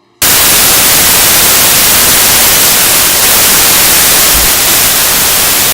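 Loud, even static hiss that cuts in abruptly and stops sharply, with no speech or pitch in it.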